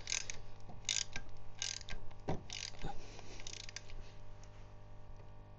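Ratchet wrench clicking in short strokes, about one a second, as the oil drain plug is tightened back in; the strokes die away after about four seconds.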